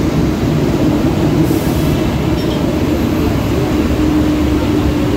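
Mumbai suburban EMU local train running along the line, heard from inside the coach: a steady, dense rumble of wheels on rail. About three and a half seconds in, a low steady hum joins it.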